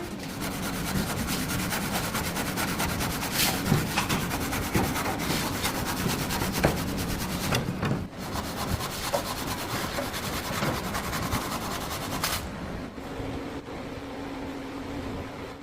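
Continuous rough scraping noise with scattered clicks and knocks, like a tool being worked against a hard surface. About twelve seconds in it stops abruptly, leaving a quieter steady low hum.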